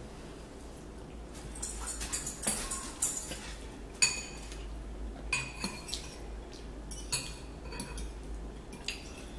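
Fork clinking and scraping against a ceramic bowl of ramen noodles, mixed with the mouth noises of chewing. The sharpest clink comes about four seconds in.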